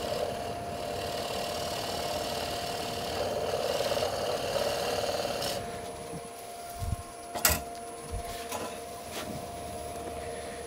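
Steel turning tool scraping and cutting the centre of a wooden bowl spinning on a running wood lathe: a steady hiss over the lathe's hum that stops about five and a half seconds in as the tool lifts off. The lathe keeps humming after that, with a few sharp knocks as tools are handled.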